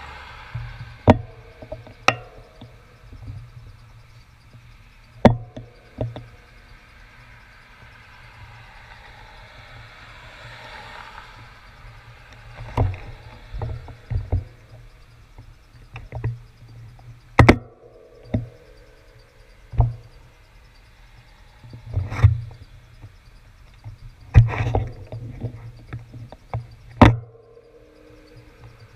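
Sharp knocks and taps close to the handlebar-mounted camera, about a dozen at irregular intervals, each with a dull thud, over faint traffic noise that swells briefly about ten seconds in.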